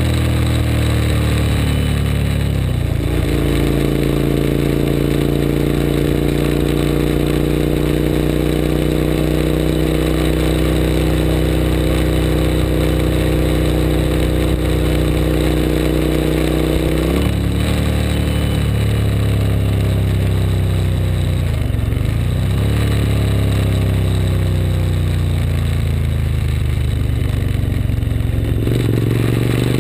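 2003 Suzuki SV1000S's 90-degree V-twin engine running under way. It holds a steady pitch for much of the first half, then the revs fall away for several seconds and climb again, with another drop and rise near the end.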